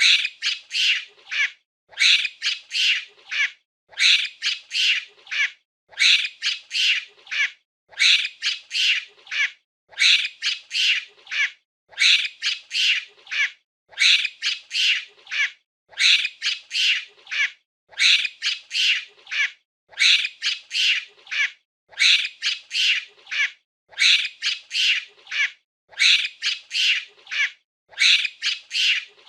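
Monkey screeching, a burst of four or five high-pitched calls repeating about every two seconds in an unchanging loop.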